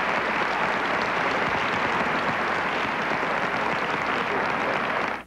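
A large theatre audience applauding steadily, cutting off suddenly near the end.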